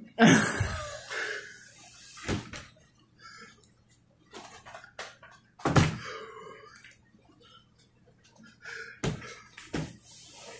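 A man breathing hard through the mouth from the burn of a Carolina Reaper pepper he has just eaten, with sharp, loud exhales, the strongest right at the start and another about six seconds in.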